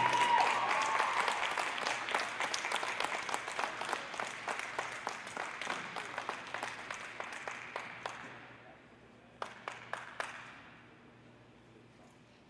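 Audience applauding at the end of a figure skating program, the clapping thinning and fading out over about eight seconds, with a few last scattered claps a little later.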